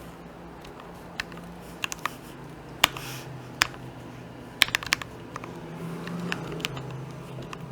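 Mechanical keyboard with lubed and filmed Gateron Ink Black linear switches and DSA keycaps: about a dozen separate keystrokes, unevenly spaced, with a few coming in quick bunches. A low steady hum sits underneath.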